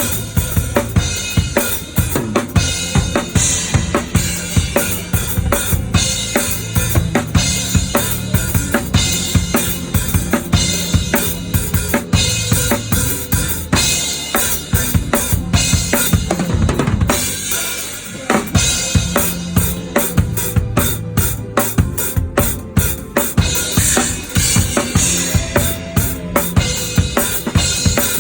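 Drum kit played close up through a worship song's groove: steady kick drum, snare with rimshots and cymbals, dropping briefly about two-thirds of the way through before sharper, more separated hits.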